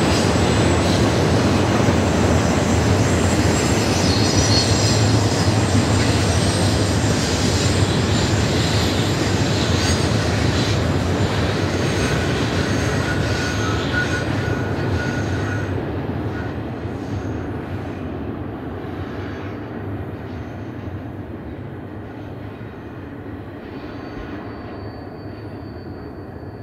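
Double-stack intermodal train cars rolling past on steel rails, a steady rumble and clatter of wheels that fades over the second half as the end of the train moves away around the curve. Short thin wheel squeals come in about halfway and again near the end.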